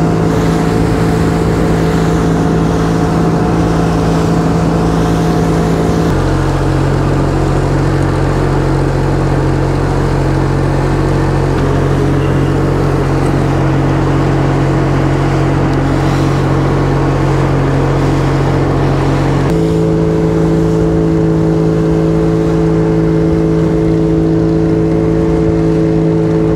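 A small motorboat's engine running steadily under way, with a rush of wind and water noise over it. The engine note steps down about six seconds in and back up near twenty seconds.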